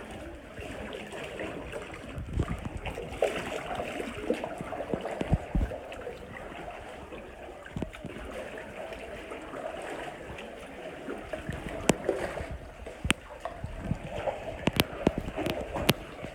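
Water lapping and gurgling around a paddled canoe, with paddle strokes and a few sharp clicks, most of them in the second half.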